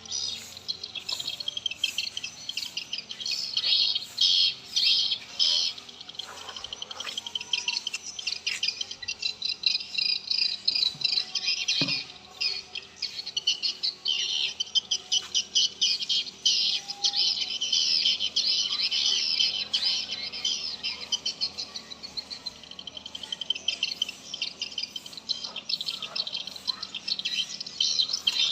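Many swiftlets twittering together: a dense, unbroken chatter of high chirps and rapid trills.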